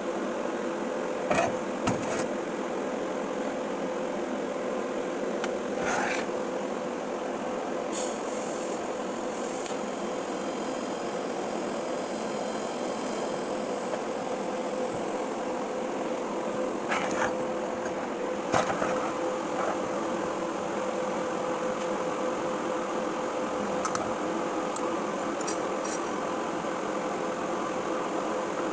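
Welding machine running with an arc going: a steady hum with a constant tone, a hiss that comes and goes, and a few sharp clicks.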